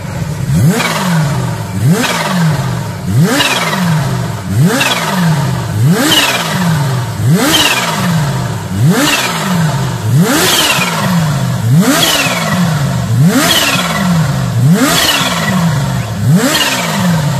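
A turbocharged engine blipped over and over, about once every second and a half. Each rev rises sharply and sags back, with a high turbo whistle falling away after it.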